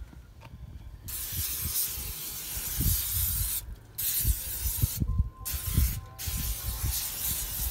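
Aerosol can of Pam cooking spray hissing in four long bursts as it coats the hot grill grates of an offset smoker with oil so the ribs won't stick.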